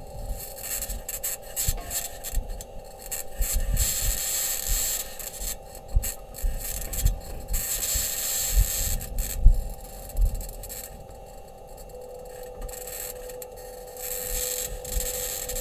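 Audio recorded on Mars by the Perseverance rover's microphone: intermittent rough scraping and rubbing with low thuds, over steady tones. A stronger steady tone joins about three-quarters of the way through.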